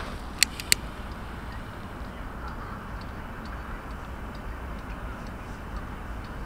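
Two sharp clicks close together about half a second in, then a steady low rumble with faint small ticks, as kindling stacked in a stone fire pit is being lit.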